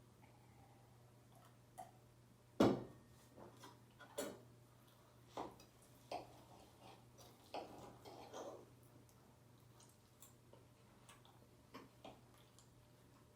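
Close-up mukbang eating of lasagna: scattered clicks and taps of a utensil on a plate, the loudest about two and a half seconds in, with soft wet mouth sounds between. A low steady hum sits underneath.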